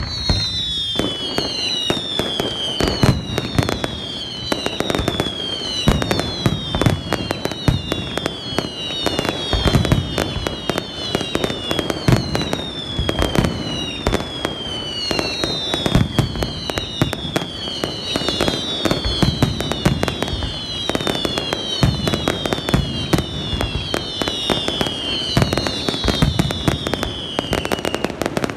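Aerial fireworks display starting suddenly: a dense, continuous barrage of bangs and crackle, with whistles one after another that each fall in pitch over about a second.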